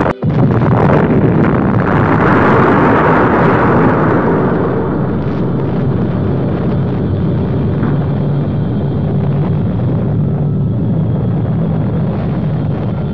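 Huge explosion or impact sound effect: a dense rumble that swells over the first few seconds and then slowly dies away, over a low steady drone.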